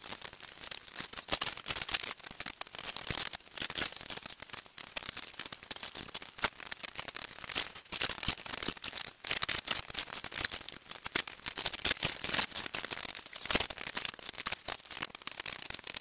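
Steel knife and fork scraping and clinking on a ceramic plate while pulling cooked chicken leg meat apart, a fast irregular run of small clicks and scrapes.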